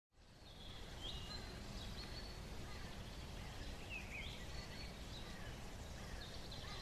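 Outdoor ambience: a steady low rush of background noise, with a few short bird chirps coming and going.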